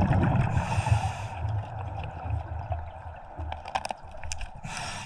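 Underwater sound around a scuba diver: a hiss of breath through the regulator about half a second in and again near the end, over an uneven low rumble of bubbles and water, with a few sharp clicks.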